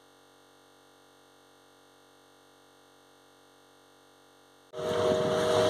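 Near silence with a faint steady hum, then about a second before the end a sudden cut to a motorboat's engine running, with water and wind noise.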